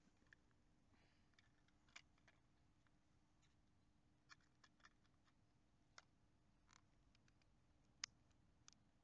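Near silence broken by faint, scattered plastic clicks and taps as an action camera is handled and fitted into its clear plastic waterproof housing, about eight of them, the sharpest about eight seconds in.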